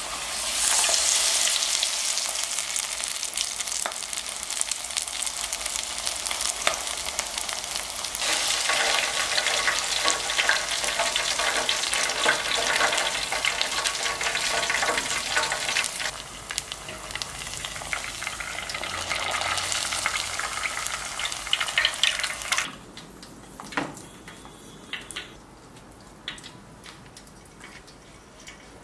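Batter-coated perilla leaf deep-frying in oil at about 180°C in a fryer's wire basket: a loud, dense sizzle that starts as the leaf goes in and cuts off suddenly about three-quarters of the way through. After it comes a much quieter stretch with a few light knocks.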